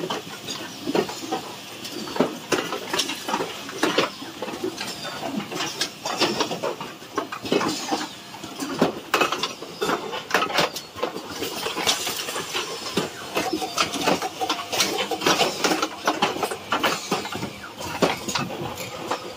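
Automatic screw-locking assembly machine running, with frequent irregular clacks and knocks from its moving parts.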